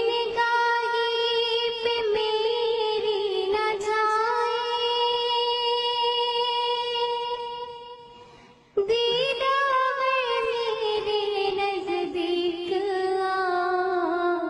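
A girl singing solo, holding long drawn-out notes with small melodic turns. There is a brief breath pause about eight and a half seconds in, and the second phrase slides slowly downward in pitch.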